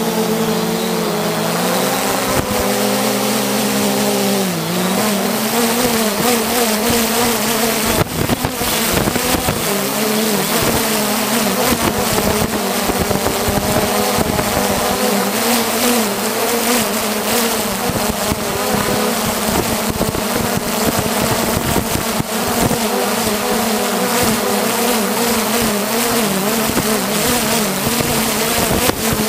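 3DR Solo quadcopter's electric motors and propellers buzzing steadily, heard from on board, the pitch wavering as the motor speeds adjust and dipping briefly about four to five seconds in.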